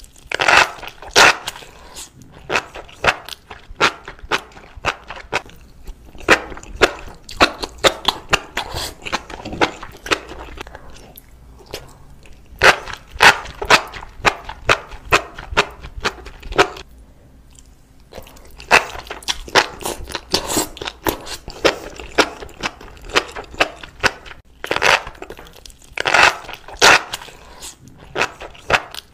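An irregular run of sharp clicks and crunches, a few a second, with short lulls about eleven and seventeen seconds in.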